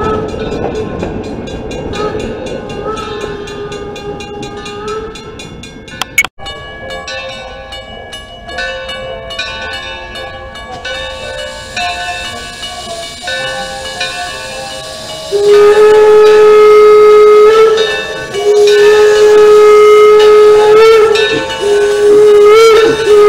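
Steam locomotive train rolling past, then, after a cut, the Calumet 0-6-4T Torch Lake's steam whistle blowing long loud blasts, with two brief breaks, from about two-thirds of the way in.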